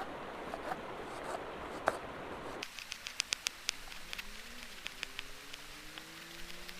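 Steady hiss of heavy rain for about two and a half seconds, then an abrupt change to a quieter sound with a run of sharp clicks and faint, slowly rising tones.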